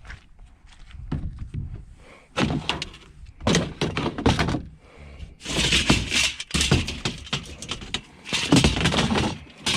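Scrap aluminum being handled and tossed onto a pile: a series of knocks and thunks with rattling metal clatter, louder and busier in the second half.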